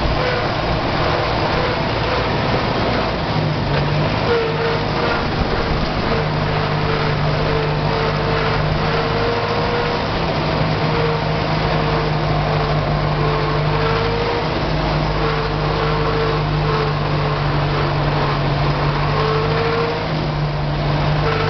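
Dutra UE-50 tractor's diesel engine running steadily as the tractor drives along, heard up close from the driver's seat.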